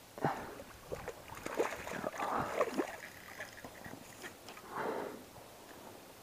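A hooked walleye splashing at the surface as it is reeled in to the bank and landed by hand, with irregular knocks and swishes. The fullest splashing comes between about one and three seconds in, with another burst near the end.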